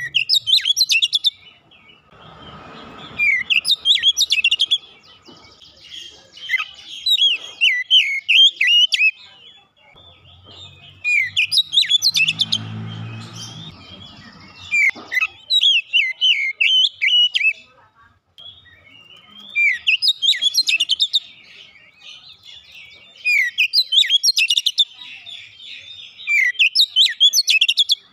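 Oriental magpie-robin (kacer) singing in repeated bursts of rapid, varied, sweeping notes, each burst a second to three long with short pauses between.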